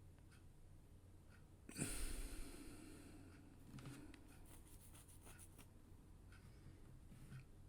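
Quiet room with a clock ticking about once a second. About two seconds in comes a short, louder rustling burst that fades over a second, then a run of small light clicks and scrapes from handling at the workbench.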